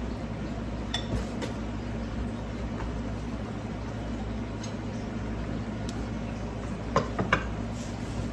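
Cookware and utensils clinking: a couple of light clinks about a second in, then a quick run of three sharper clinks about seven seconds in, the loudest sounds here. A steady low hum runs underneath.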